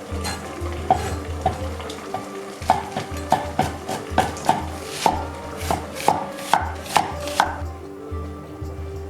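Kitchen knife chopping on a cutting board in irregular strokes, about two to three a second, each with a short ring. The chopping stops about three-quarters of the way through.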